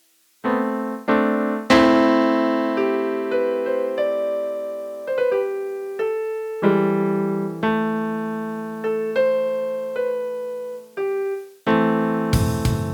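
Yamaha PSS-A50 portable keyboard's piano voice playing a slow melody over held chords, starting about half a second in, each note struck and fading away. Near the end a busier section with drum hits comes in.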